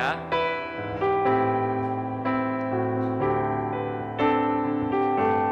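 Piano playing slow, sustained worship chords, a new chord struck about once a second, with no singing.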